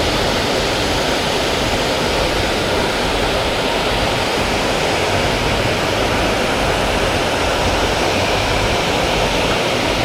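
Small creek waterfall pouring steadily, a constant rushing of falling water.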